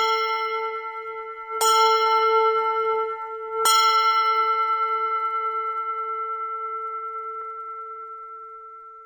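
A bell struck three times, about two seconds apart, each strike ringing on with a slight wavering and fading slowly.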